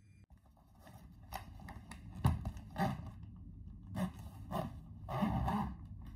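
The expansion zipper on a hard-shell suitcase being pulled along in a series of short, rasping tugs, with the shell being handled; the longest pull comes near the end.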